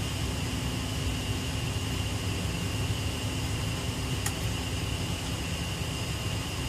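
Gas water heater's draft fan running with a steady whir, a low hum and a thin high tone, while the heater tries and fails to light. A single faint click about two-thirds of the way in.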